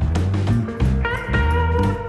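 Background music: a blues-style guitar track with a steady beat and bass, a slide guitar holding and bending a note about halfway through.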